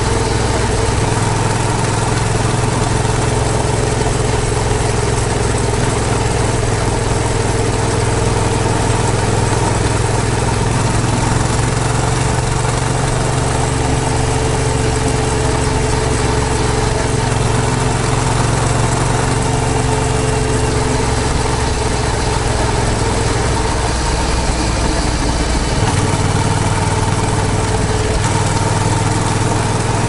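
Yamaha MT-07's 689 cc parallel-twin engine running steadily while riding, under a constant rush of wind and road noise. The engine note sags late on and picks back up about 26 seconds in.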